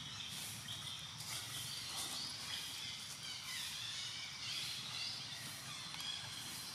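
Outdoor forest ambience: birds chirping in short, repeated phrases over a steady high hiss that swells and fades about twice a second.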